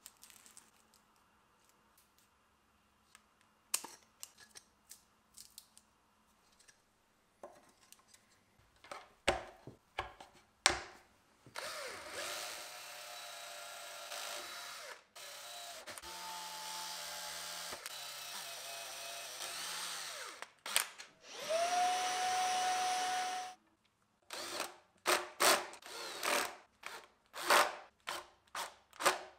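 Cordless drill boring pilot holes through a speaker port's flange into wood, running steadily for several seconds at a time, one run with a rising whine as it spins up. Near the end it drives the flange screws in a string of short bursts; a few knocks and clicks come first.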